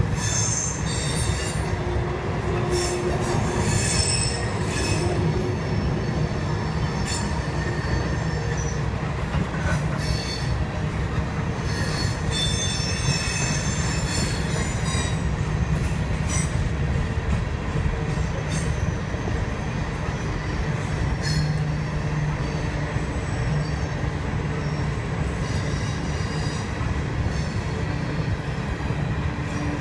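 Ballast hopper cars of a freight train rolling past, a steady rumble of steel wheels on rail. High wheel squeal comes and goes, strongest in the first few seconds and again about twelve to fourteen seconds in.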